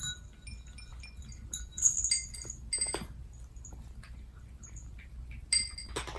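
Cats eating dry kibble from their food bowls, with several sharp, ringing clinks of the bowls.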